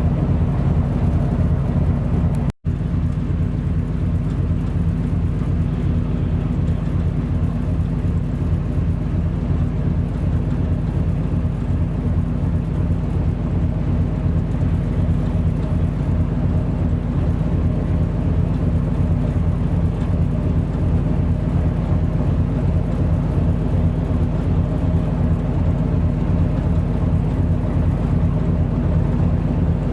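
Coastal cargo ship's diesel engine running with a steady, deep drone and an even pulsing hum. The sound cuts out for an instant about two and a half seconds in.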